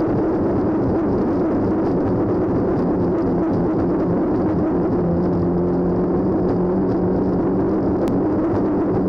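Racing hydroplane heard onboard at speed: its engine runs steadily under a loud rush of wind and water. About halfway through, the engine's note changes as the boat eases off through a turn and then speeds up again.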